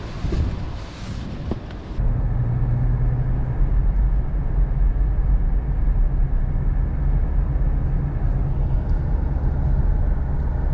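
Wind buffeting the microphone, then about two seconds in a switch to the steady low rumble of a car driving along, heard from inside the car: engine drone and tyre noise on the road.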